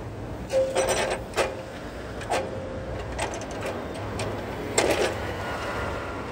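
Heavy square timbers knocking and scraping as they are handled and set onto a miter saw's table, in several separate knocks, the loudest near the end, over a low steady background rumble.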